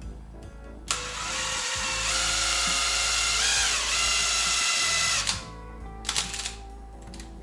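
DeWalt cordless drill running steadily for about four seconds, spinning a length of copper wire whose far end is clamped in a vise. It starts about a second in, dips briefly in pitch partway through, and stops abruptly, followed by a few light clicks.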